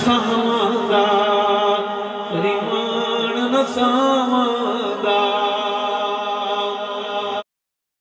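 A man's voice chanting an unaccompanied devotional poem through a microphone and loudspeakers, drawing out long held notes that waver and bend in pitch, with no clear words. The sound cuts off abruptly about seven and a half seconds in.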